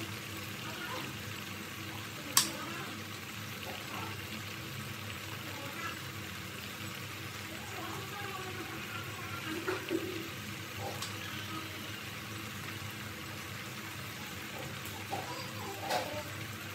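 Sweet fruit dessert simmering in syrup in a clay pot, a steady low bubbling, with one sharp click about two seconds in.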